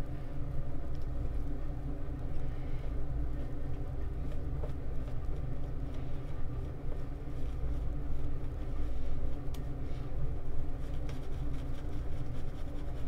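Boar-bristle shaving brush swishing as lather is worked onto the face, over a steady low mechanical rumble with a faint hum.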